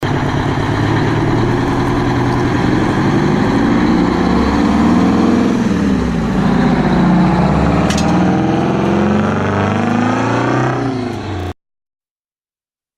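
Detroit Diesel 8V92 two-stroke V8 in a 1985 Peterbilt dump truck, revving: the pitch drops about midway, then climbs steadily before the sound cuts off suddenly.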